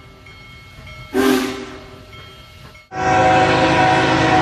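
A steam locomotive's whistle gives one short blast about a second in, over the sound of the passing train. At about three seconds it cuts to a diesel freight locomotive's air horn sounding loud and steady.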